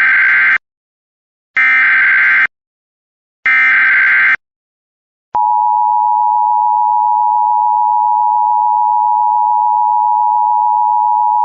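Emergency Alert System tones: three short bursts of the SAME header data, each about a second long, then about five seconds in the steady two-tone attention signal (853 and 960 Hz sounding together), which announces an emergency alert message.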